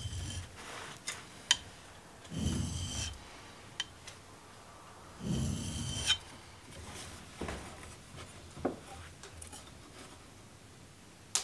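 A steel blade being honed on a sharpening stone: scraping strokes about every three seconds, with a few short sharp clicks between them.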